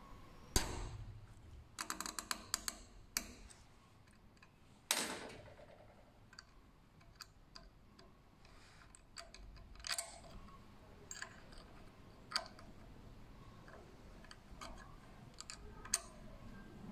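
Small metal clicks and taps of a hex key turning the pivot screws on an electric pruning shear's blade head. A quick run of ticks comes about two seconds in and a louder clack about five seconds in, then scattered light clicks.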